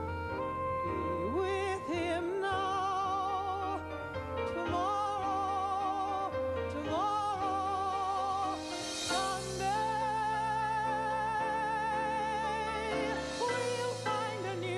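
A woman singing a slow ballad, holding long notes with a wide vibrato in phrases of a couple of seconds each, over sustained low accompaniment.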